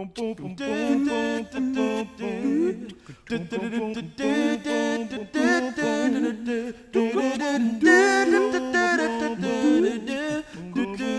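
Wordless a cappella singing: several voices humming and singing in harmony, with sliding notes.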